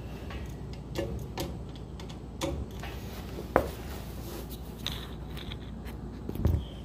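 Scattered clicks and knocks of hands handling parts and the propped-up camera, the sharpest about three and a half seconds in and a low thump near the end, over a steady low hum.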